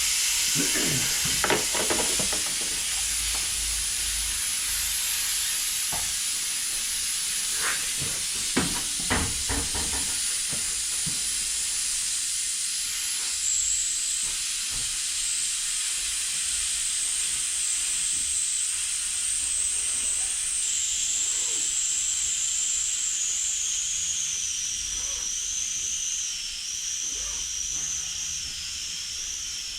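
Steady loud hiss with a high whistle in it that slowly drops in pitch through the second half. A few short knocks sound a quarter of the way in.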